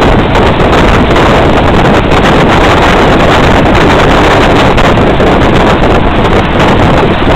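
Loud, steady wind buffeting the microphone from a moving military vehicle, with the vehicle's engine and road noise underneath.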